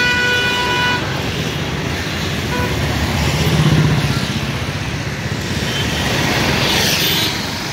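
Busy city road traffic: a steady mix of engine and tyre noise from cars, buses, auto-rickshaws and motorbikes. A vehicle horn is held for about a second and then stops.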